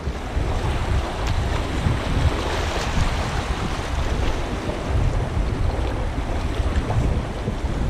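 Fast-flowing river water rushing and splashing around a kayak's bow as it drifts through riffles on a high river, with wind buffeting the microphone in a steady low rumble.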